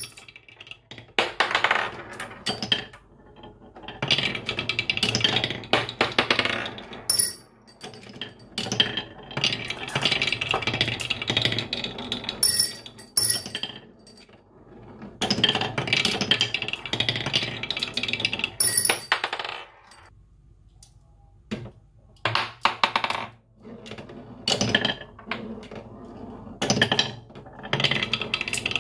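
Glass marbles rolling and clattering along a wooden marble-run track with wavy grooves. The rolling comes in spells of a few seconds, dotted with sharp clicks and a few high glassy clinks, with quieter gaps between.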